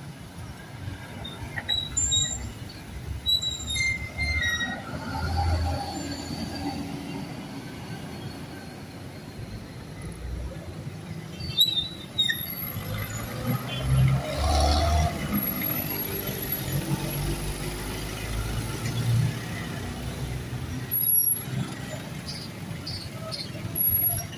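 Street traffic at an intersection: cars, motorcycles and a truck passing, their engine noise swelling and fading. There are a few short high squeals in the first few seconds and again near the middle.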